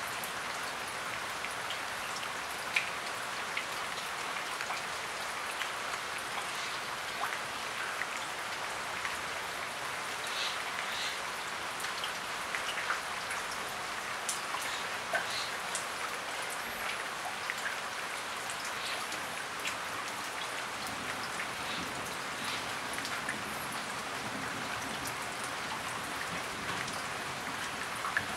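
Steady rain falling, an even hiss with many separate drops heard as scattered small ticks.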